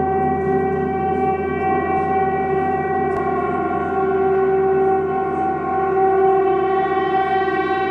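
Large hanging gongs sounding in a sustained, shimmering drone of many overlapping tones, swelling gently a little after five and six seconds in, with no distinct strike.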